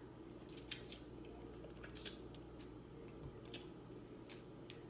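Faint, scattered clicks and small cracks of snow crab leg shells being broken and picked apart by hand, with a few soft wet squishes, over a steady low hum.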